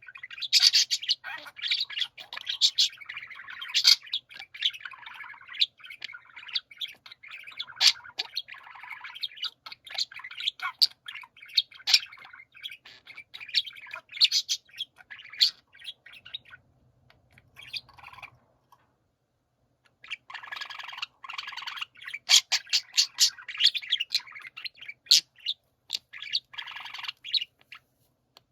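Several budgerigars chirping and warbling together in a dense, rapid chorus. They fall silent for about three seconds a little past the middle, then start again.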